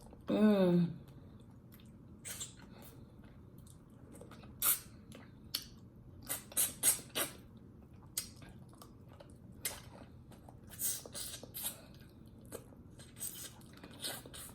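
Close-miked mouth sounds of someone eating: scattered wet clicks and smacks of chewing and lip-smacking. A short hummed vocal sound with falling pitch comes right at the start.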